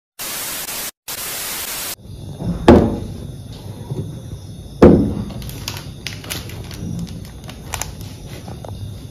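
Two short, abrupt blocks of static-like hiss, then two loud thunks, each with a short falling tone, with light clicks and clatter of handling in between and after.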